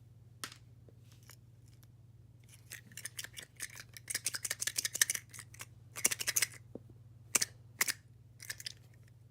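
Hatchimals CollEGGtibles toy egg shell being cracked and peeled open by hand: a run of sharp crackles and clicks, densest in the middle, over a faint steady hum.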